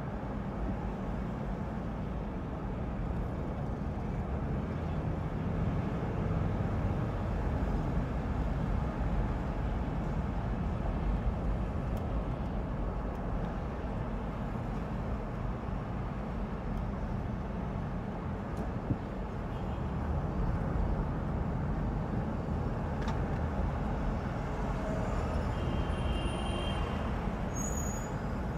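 Street traffic heard from the roof of a moving car: a steady low rumble of engines and tyres, with a few short high-pitched squeals near the end.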